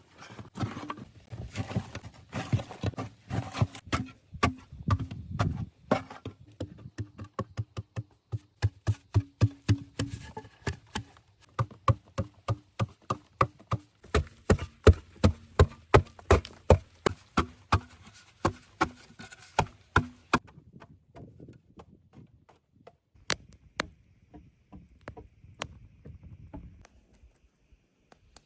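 Rapid, repeated strikes of a hand tool on wood, like hatchet chopping, about two to three blows a second. The blows thin out to a few scattered knocks after about twenty seconds.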